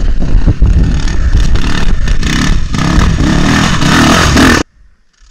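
85cc two-stroke dirt bike engine running hard under throttle while being ridden, with knocks and clatter from the rough ground; the sound cuts off suddenly near the end.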